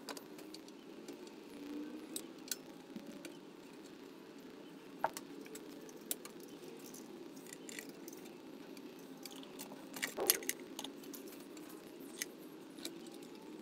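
Light metallic clicks and clinks of a throttle cable and small parts being worked onto a small Briggs & Stratton engine, with a short cluster of louder clatter about ten seconds in, over a low steady hum.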